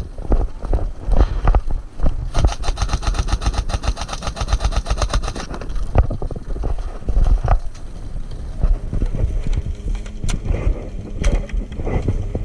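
Airsoft electric gun firing a rapid full-auto burst of about three seconds, starting about two seconds in, followed by a few single shots, over heavy rumble of movement and wind on the microphone.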